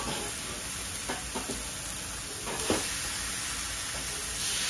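Ham slices and shredded pork sizzling on a hot flat-top griddle, a steady frying hiss, with a few short taps as slices are laid down.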